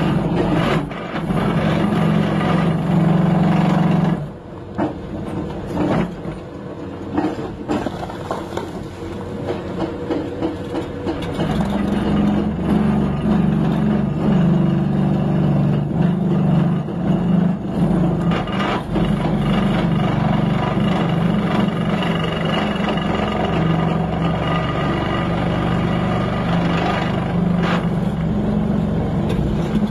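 Hydraulic breaker on a Doosan excavator hammering rock in a steady rapid chatter, over the excavator's diesel engine. The hammering stops about four seconds in, leaving the engine and scattered knocks of rock, and starts again around eleven seconds in.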